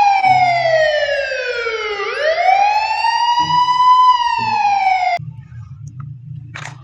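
Police siren wailing in slow sweeps: it falls in pitch for about two seconds, rises again, starts to fall once more, and cuts off suddenly about five seconds in.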